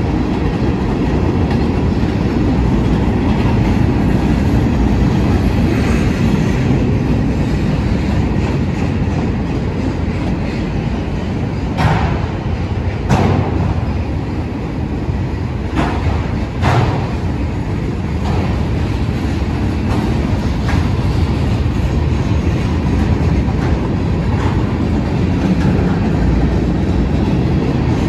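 Freight train cars rolling past with a steady rumble, wheels clacking over rail joints, with a few sharp metallic knocks about halfway through.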